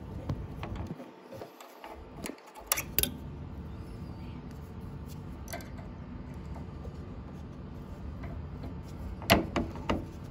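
Hex key working the clamp screws of a piercing valve on a copper refrigerator line: a few sharp metal clicks and taps, a pair about three seconds in and a louder pair near the end, over a steady low hum.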